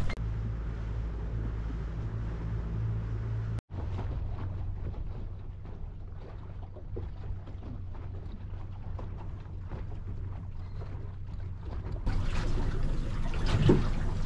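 Small boat's motor running with a steady low hum under wind and water noise. It drops out briefly a few seconds in and turns louder, with some knocks, near the end.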